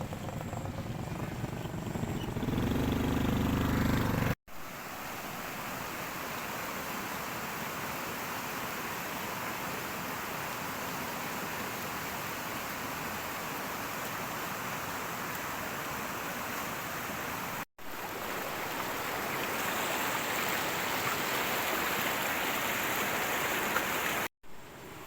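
Steady rushing noise of flowing water, broken by sudden cuts into three stretches. The first few seconds carry a heavier low rumble.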